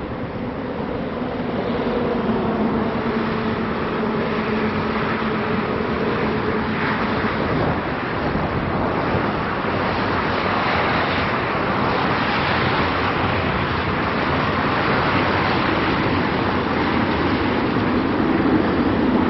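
Steady roar of traffic on a busy multi-lane highway below, cars and trucks passing continuously, with a low engine hum in the first half.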